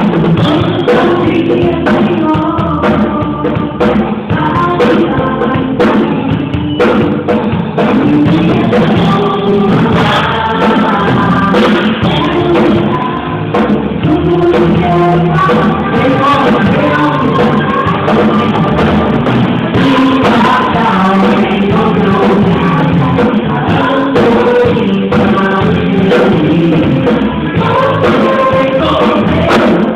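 Gospel worship song: voices singing over a band with a steady beat.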